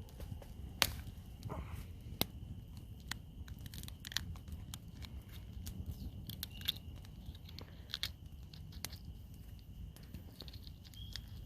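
Campfire crackling, with irregular sharp snaps and pops, over a steady high chorus of frogs.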